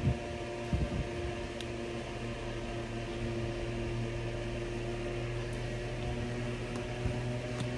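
A steady mechanical hum, like a small fan motor running, with a few soft handling knocks about a second in.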